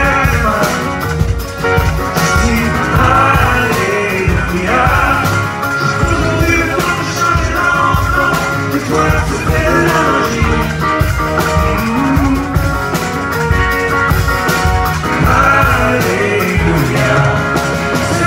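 Live rock band playing: a man singing over electric guitars and a drum kit with a steady beat.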